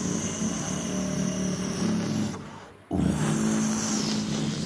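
Vocal mimicry of a bus engine: a deep voice blended with a dinosaur-like growl, made into a low steady engine drone. It fades out about two and a half seconds in and starts again abruptly a moment later.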